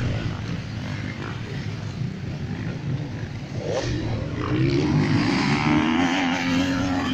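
Off-road motorcycle engines running on a dirt track, with one bike revving higher and getting louder from about halfway through as it comes closer.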